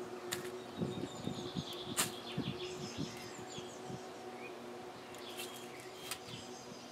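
Small birds chirping while a hen pecks among gravel and weeds, with a few sharp taps, the loudest about two seconds in.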